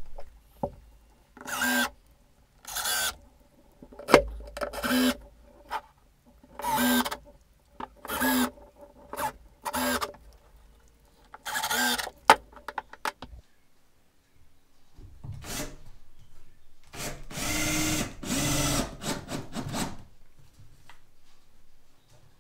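Cordless drill spinning up in short bursts, about nine in a row a second or so apart, driving finish screws down through pine car-siding floorboards. After a pause comes one longer run of the drill near the end.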